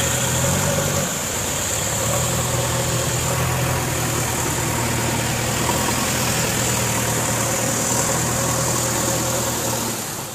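Tractor's diesel engine running steadily, its pitch rising briefly about a second in, under a steady hiss.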